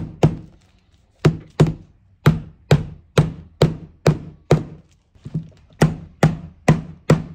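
Hammer blows driving the pin of an iron cleat into a leather boot sole, the boot knocking against a paper-covered counter with each strike, about three blows a second. Short pauses come after the first blow and again about five seconds in.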